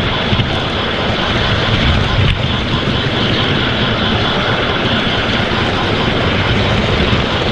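Loud, steady engine rumble of a large vehicle, with a short sharp knock about two seconds in.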